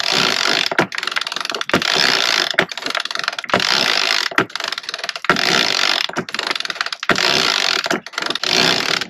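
Sailboat halyard winch cranked by hand under the load of hoisting a person up the mast, its pawls clicking fast in steady strokes a little under a second apart.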